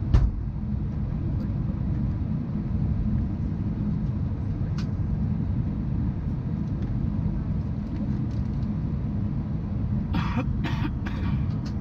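Steady low rumble of an Airbus A319's cabin ventilation while the airliner waits before take-off, with a couple of sharp clicks. A passenger coughs three times near the end.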